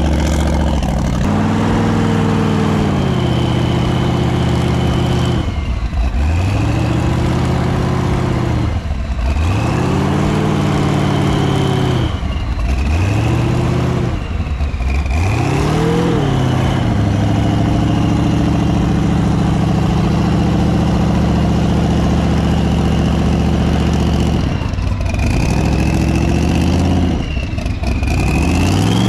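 Off-road vehicle engine revving up and dropping back several times, with a steadier stretch in the middle, and a thin high whine that rises and falls with it.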